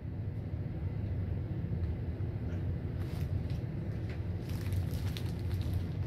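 Hunter "Original" ceiling fan running on high speed: a steady low rumble of its blades pushing air. A few faint light ticks come in the second half.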